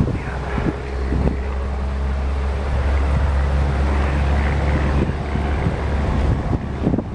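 Strong wind buffeting the microphone, with a steady low hum underneath that swells through the middle and eases off, plus a few short knocks near the end.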